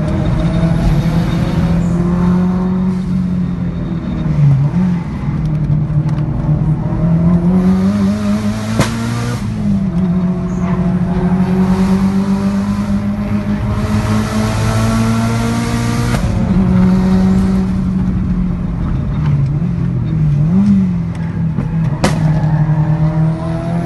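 Turbocharged four-cylinder car engine driven hard, revs climbing and dropping again and again through gear changes. There are two sharp exhaust pops, one about nine seconds in and one near the end, which fit the huge pops from the Lancer Evolution VIII.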